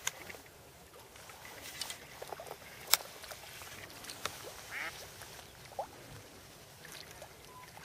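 Ducks quacking a few times in short calls, with one sharp click about three seconds in.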